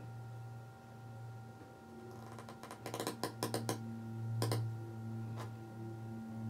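A quick run of sharp clicks and taps about halfway through, then a couple of single clicks, over a steady low hum.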